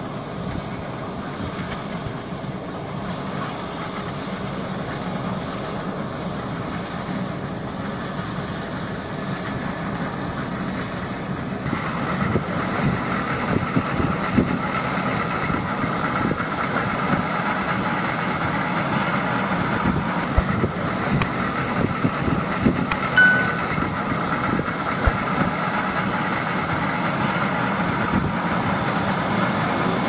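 Case IH Axial Flow 5140 combine harvesting an oilseed crop: its diesel engine and threshing machinery run steadily, growing louder as it comes closer. A higher whine joins about twelve seconds in, with scattered small clicks.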